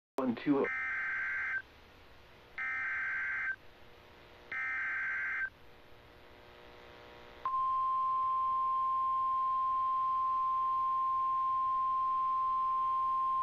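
Emergency Alert System SAME header: three warbling digital data bursts of about a second each, a second apart, announcing a new alert. These are followed by a steady single-pitch warning tone (the 1050 Hz weather radio alert tone) that holds unbroken, signalling that a severe thunderstorm warning message is coming. A short falling chirp sounds just before the first burst.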